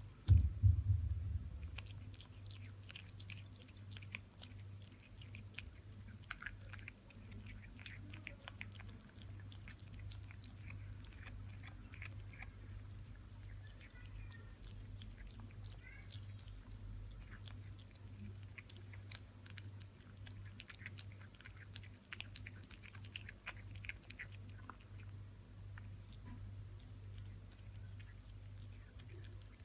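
A kitten chewing raw minced meat from a plastic bowl: many small irregular clicks of its jaws and tongue. There is a loud low thump about half a second in, over a steady low hum.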